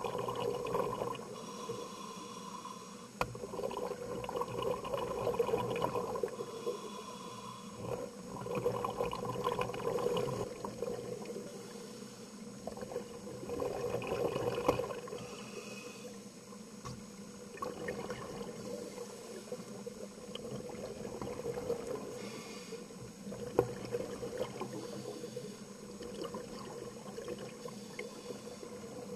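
Water sloshing and moving in slow swells that rise and fall every four to five seconds, with a few sharp clicks.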